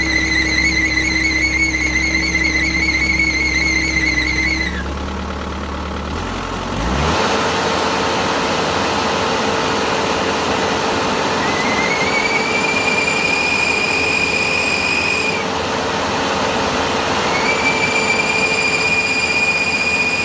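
A final drive motor on tracked equipment squealing: a high-pitched screech in three long stretches, the later two rising in pitch as they start, over the machine running. The uploader's diagnosis is a weak charge pump that keeps the final drive's brakes from disengaging, so they drag.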